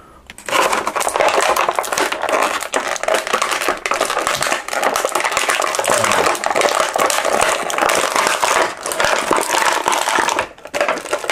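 Thin clear plastic bag crinkling steadily as an action figure is handled and worked out of it, with a brief lull near the end.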